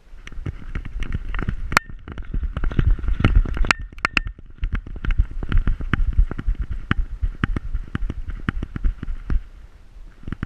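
Rapid, irregular knocks and clicks over a heavy low rumble from a camera strapped to a Pointer's back, jolted with every stride as the dog moves through grass. It starts suddenly and eases near the end.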